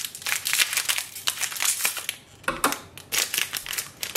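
Foil packet of a printer ink cartridge crinkling as it is cut open with scissors and pulled apart: a dense run of crackles with a short lull about two seconds in.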